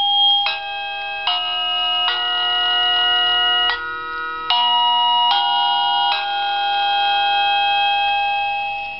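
SadoTech Starpoint wireless doorbell receiver playing one of its electronic chime melodies: a tune of about eight notes, the last one held and fading away near the end. It is a ring-tone preview, played while the melodies are stepped through in configuration mode.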